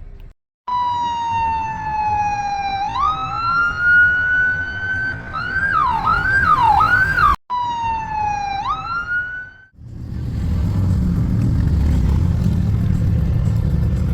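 An emergency vehicle's electronic siren sounds in a long wail, then switches to rapid up-and-down yelps. It cuts off abruptly twice. From about ten seconds in, a steady low rumble of road traffic follows.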